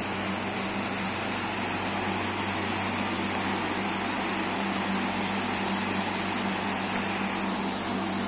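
Aquarium equipment running steadily: a constant low hum with an even hiss over it, as from the tank's pump and moving water.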